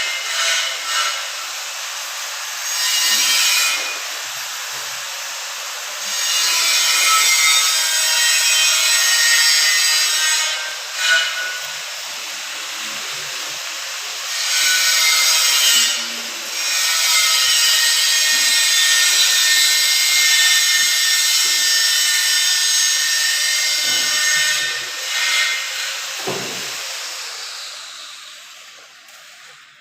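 A power tool running and working into material, with a steady whine under a rough, noisy cut that grows louder and eases off in stretches, then fades away near the end.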